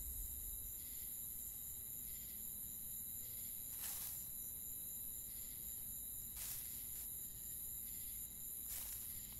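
Faint night-time cricket ambience: a steady high-pitched insect trill, with a few faint brief noises every couple of seconds.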